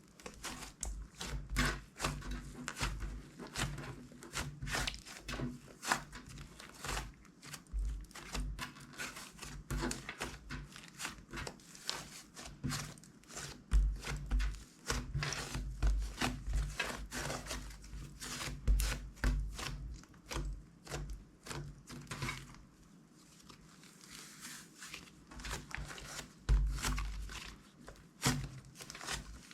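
Glossy slime being squished, stretched and mixed by hand, giving a steady stream of irregular sticky clicks and crackles, with a quieter stretch about two-thirds of the way through.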